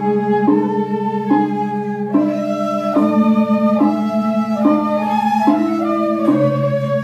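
Two Balinese suling bamboo flutes playing a flowing melody together, stepping from note to note about twice a second, over a steady low drone.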